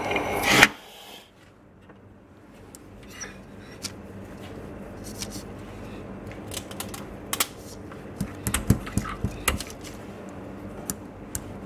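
A short burst of hiss about half a second in, then scattered light clicks and taps from small parts being handled on a workbench. The taps come more often and louder in the second half.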